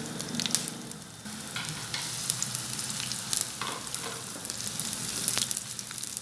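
Chopped onions sizzling in hot ghee in a nonstick frying pan, a steady hiss with scattered crackles and the scrape of a spatula as they are stirred.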